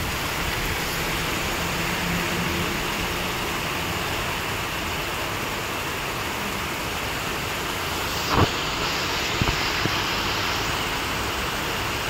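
Heavy rain pouring down in a steady hiss. A sharp thump about eight seconds in, with a couple of lighter knocks just after.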